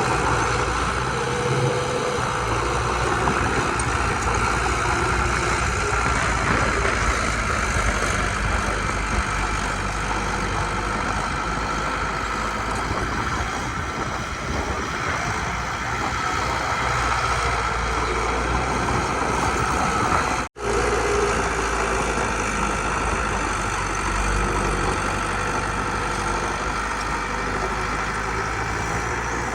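Diesel engines of heavy earthmoving machinery, a bulldozer and dump trucks, running steadily. A split-second dropout about two-thirds of the way through.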